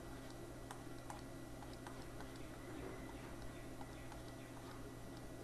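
Faint, irregular clicks of a stylus tapping a digital writing tablet during handwriting, over a steady low hum.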